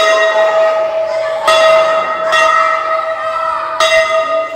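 Large hanging brass temple bell struck by hand about five times in quick succession, each strike clanging and then ringing on with a steady tone that overlaps the next.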